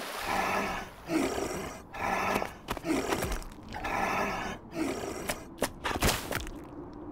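Cartoon seal character's voice making a series of short calls, about one a second, each with a bending pitch. Around five to six seconds in, a quick cluster of slaps and thuds comes as one seal lands on the other.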